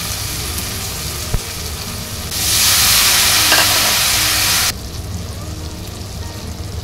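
Onion-tomato masala frying in oil in a metal kadhai, with a spatula stirring and scraping it. About two seconds in, a splash of water hits the hot oil and the sizzle turns much louder for a couple of seconds, then drops back suddenly.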